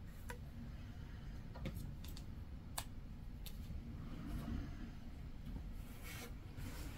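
Faint hand-sewing handling sounds: needle and thread drawn through fabric, with a few small sharp clicks, and a longer rustle of cloth near the end as the patchwork is smoothed flat.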